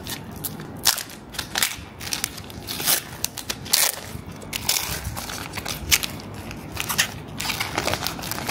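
Foil wrapper of a Pokémon trading card booster pack being torn open and crinkled by hand: an irregular string of sharp crackles and rustles.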